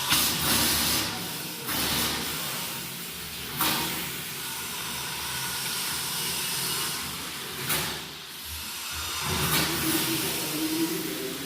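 Water gushing from a washbasin tap into the basin, a steady hissing splash, with a few short knocks. The strong flow shows good water pressure at the tap.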